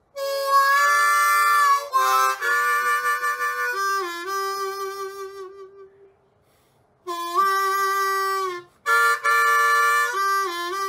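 Background music of held, sustained chords that change every second or two. It fades out about halfway and starts again after a pause of about a second.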